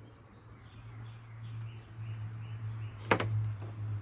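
Soft rustling of a cloth helmet bag being handled, growing toward the end, with one sharp click about three seconds in. Under it run a steady low hum and faint, repeated bird chirps in the first half.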